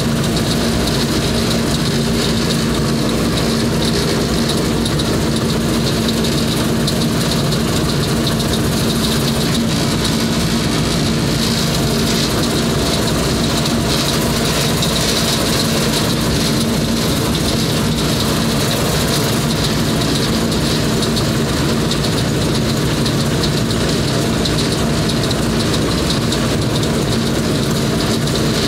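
Tractor engine running steadily with a constant low hum while driving a mounted fertilizer spreader at work, along with a steady high hiss from the running spreader.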